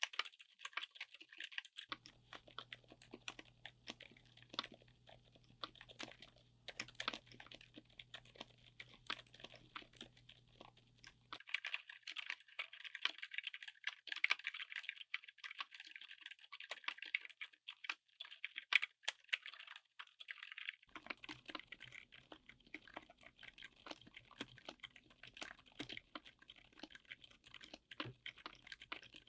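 Fast continuous typing on a mechanical keyboard fitted with silent switches: a dense run of soft, damped keystroke clicks. The recording changes about 2 s, 11 s and 21 s in, with a faint low hum under the typing in some sections.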